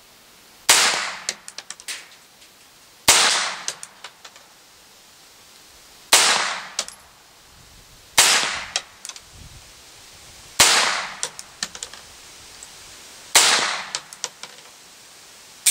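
Six shots from a Vostok Margolin .22 Short semi-automatic target pistol firing low-velocity CCI CB Short rounds, one every two to three seconds. Each shot is followed by a few light clicks and clinks as the action cycles on these weak rounds.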